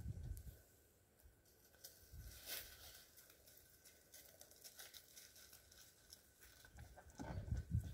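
Faint crackling and rustling of footsteps on gravel and dry fallen leaves, with a louder scuff about two and a half seconds in and a few heavier bumps near the end.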